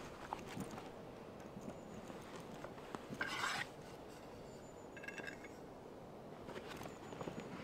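Rummaging in a leather backpack and lifting out a metal thermos flask: soft rustles and knocks of the bag, a short scraping rush about three seconds in, and a brief metallic ring around five seconds.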